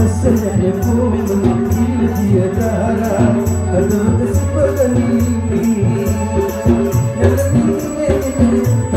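Live band accompanying a folk dance: hand drums and a rattle-like shaker beat an even rhythm, about four strokes a second, under sustained electronic keyboard chords.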